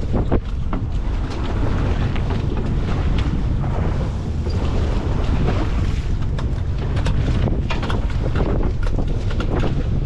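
Wind buffeting the microphone over the steady low rumble of a sportfishing boat at sea.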